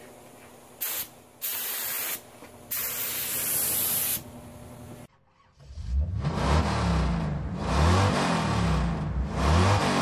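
Paint spraying in three hissing bursts, the third one longest, each cutting off sharply. After a brief silence, a louder engine revving up and down over and over.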